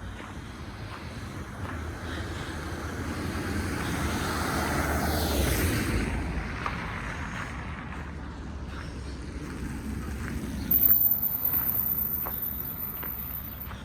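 A road vehicle passes by, building up, peaking about halfway through with its pitch dropping, then fading away. A second, smaller pass-by comes near the end with a short loud burst.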